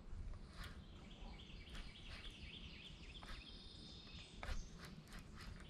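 Faint birdsong: many short, high chirps repeating, over a low outdoor rumble, with a few sharp clicks, the loudest about four and a half seconds in.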